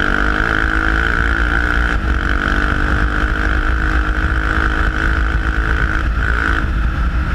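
Yamaha Raptor 700 quad's single-cylinder engine running hard under way, its pitch shifting up and down with the throttle, with wind buffeting the microphone.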